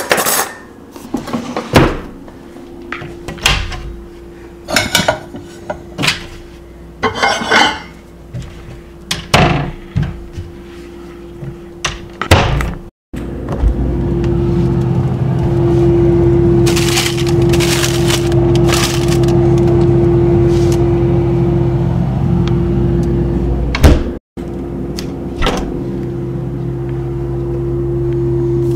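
A string of separate sharp knocks and bangs over a faint steady tone, then, after a sudden cut, a steady machine hum for the rest, broken once by another brief cut.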